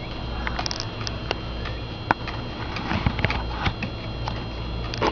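Scattered small clicks, taps and scratches from a pet bird nibbling and clambering about, with one sharper click about two seconds in, over a steady low hum.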